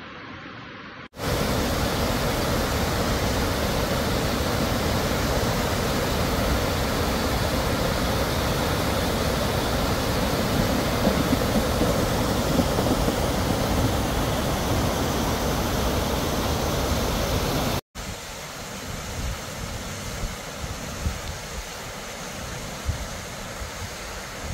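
Muddy flash floodwater in a wadi rushing and spilling over a low weir, a loud steady rush that starts abruptly about a second in. It cuts off suddenly near the end, giving way to a quieter water rush with a few low thumps.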